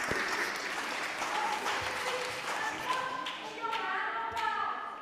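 Audience applause dying away, with voices talking over it in the second half.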